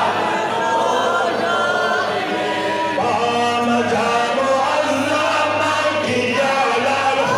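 A man's voice singing a Pashto naat, a devotional Islamic hymn, without instruments, in long held and gliding notes into a microphone.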